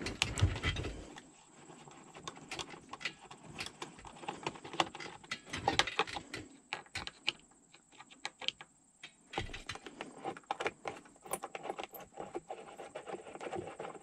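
Torx screwdriver backing screws out of a truck's plastic steering-column cover: scattered light clicks, taps and scrapes of the tool and hands against the plastic at uneven intervals, with a dull bump at the start and another about nine and a half seconds in.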